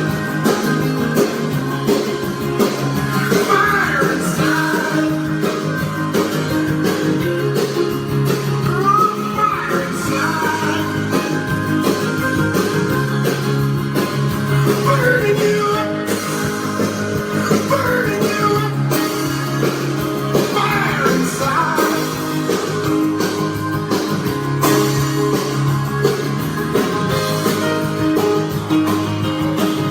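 Background music: guitar-led song with singing.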